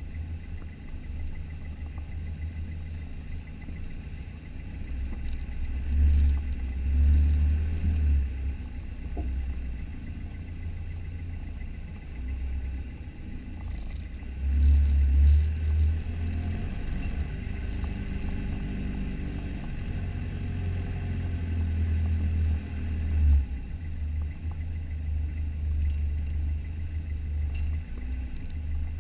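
Engine of a four-wheel drive running at low speed over a rough dirt track, heard from a camera on its bonnet as a steady low rumble that swells louder three times.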